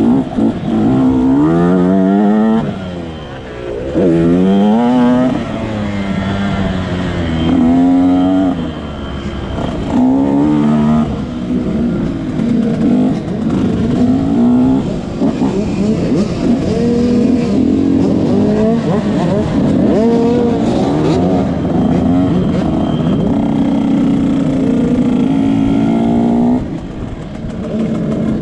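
Motocross bike engine, heard from on the bike, revving up and dropping back again and again as it accelerates and shifts through the gears. It then runs at a steadier pitch and falls off near the end as the bike slows.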